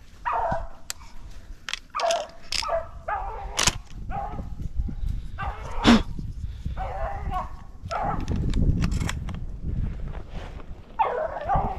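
Beagles baying on a rabbit chase: repeated bouts of pitched, howling barks, with a few sharp clicks in between.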